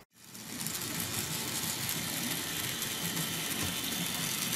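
ScaleTrains N scale GE Tier 4 GEVO model locomotive running under load with a train of 34 freight cars, a steady whirring and rolling noise of motor and wheels on the track. The noise starts just after a short silence.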